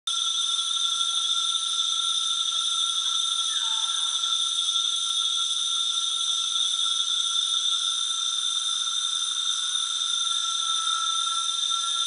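Night chorus of Amazon rainforest insects: several steady, high-pitched trills layered together without a break, with a brief lower call about three and a half seconds in.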